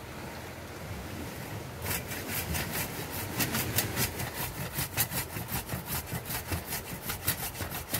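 A hand blade sawing back and forth through a woody tree root, cutting the mustam stump free: rapid, even scraping strokes, about four or five a second, starting about two seconds in.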